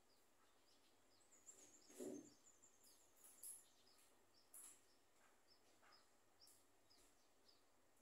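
Faint, high peeps of newly hatched scaly-breasted munia nestlings, short and repeated a few times a second, with a soft rustle of the grass nest lining about two seconds in.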